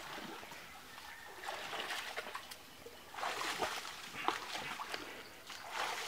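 Shallow stream water splashing and sloshing as a man wades and thrashes at it with his hands and feet, in irregular bursts that grow louder about halfway through.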